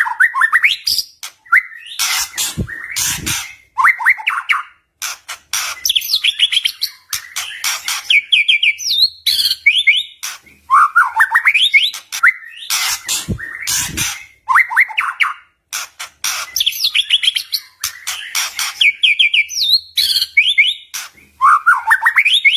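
A white-rumped shama sings a loud, varied song of quick rising trills and sharp clicking notes. The same run of phrases comes round twice, about ten seconds apart.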